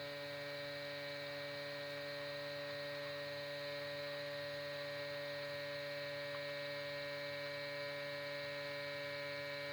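Steady electrical hum, a stack of even, unchanging tones with no breaks.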